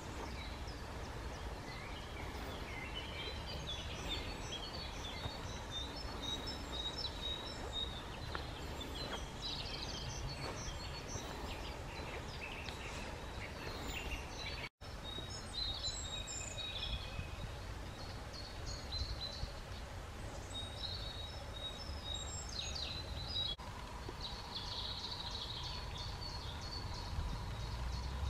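Small songbirds chirping and singing in many short, scattered calls over a low, steady outdoor rumble. There is a brief dropout about halfway through.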